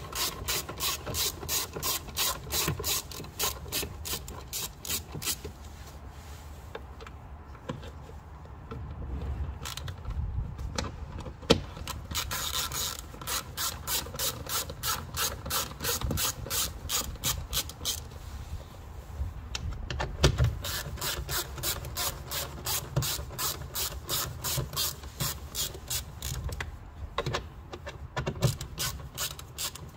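Ratcheting screwdriver-handle driver with an 8mm socket clicking back and forth as it undoes a car door speaker's mounting bolts. The clicks come evenly, a few per second, in runs broken by short pauses as the driver moves from bolt to bolt.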